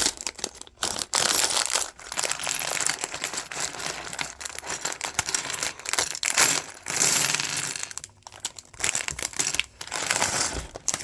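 Plastic LEGO parts bags crinkling as they are handled, with small plastic pieces clinking and rattling inside them.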